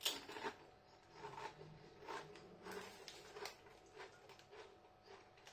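A person chewing a corn tortilla chip close to the microphone, with faint irregular crunches about every half second to second after a sharp bite at the start. The chips are soft rather than crisp, so the crunch is muted.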